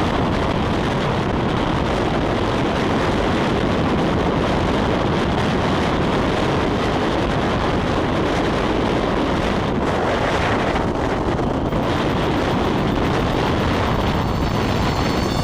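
Strong wind buffeting the camera microphone: a loud, steady rush of noise with no let-up.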